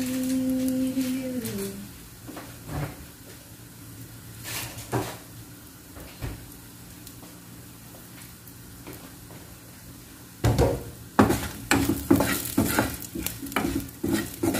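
Wooden spatula stirring and scraping food in a nonstick wok, a rapid run of knocks and scrapes starting about ten seconds in, over a faint sizzle of frying; before that only a few scattered clicks.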